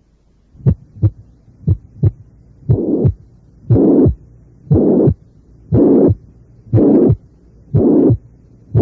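Recorded heart sounds of combined mitral stenosis and mitral regurgitation, built up step by step. At first only paired short heart sounds beat, about one beat a second. From about two and a half seconds in, a rough systolic murmur is added to each beat, louder from about three and a half seconds on.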